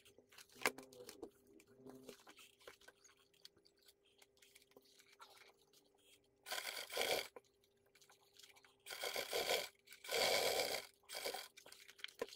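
Handling noises: a few short bursts of rustling, crinkling and scraping as leather and a stiff paper-like sheet are shifted under a sewing machine's presser foot, with scattered small clicks. A faint steady hum lies underneath.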